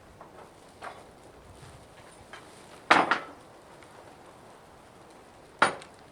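Two sharp clanks of hard objects knocking together, a little under three seconds apart, with a fainter knock about a second in.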